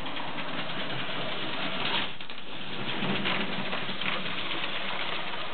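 Lego 12-volt trains running on their track: a steady whirring rattle made up of many small clicks.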